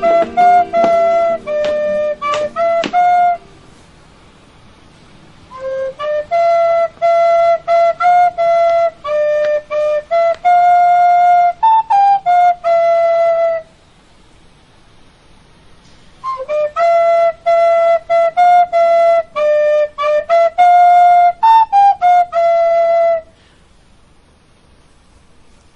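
A plastic recorder playing a simple tune note by note, in three phrases with short pauses between them; the second and third phrases play the same melody.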